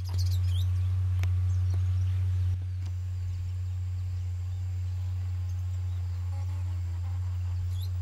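New Holland T6.130 tractor's diesel engine pulling a 24-disc offset harrow, a low steady drone that drops a little about two and a half seconds in. Birds chirp faintly at the start and near the end.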